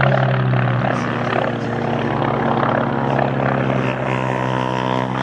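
Radial piston engines of WWII propeller-driven navy fighters droning steadily as they fly the display, with a slight shift in pitch about four seconds in.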